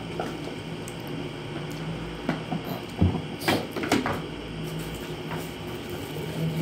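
Eating by hand from a ceramic plate: a few short clicks and taps, most of them about two to four seconds in, over a steady low hum.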